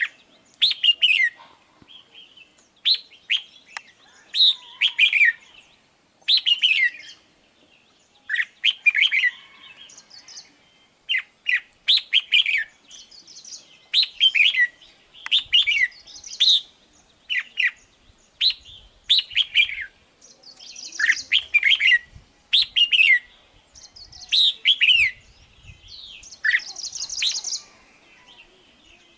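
Red-whiskered bulbul singing: short, bright warbled phrases of quickly falling notes, repeated every second or two, with a harsher, buzzier call near the end.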